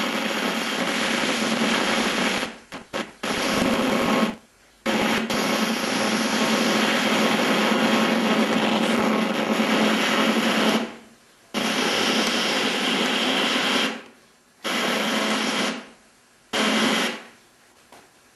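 Hiss and buzz from an analogue TV set's sound channel tuned to a weak, fading long-distance sporadic-E signal, with no clear programme sound. It cuts out abruptly to near silence about six times as the signal drops and returns.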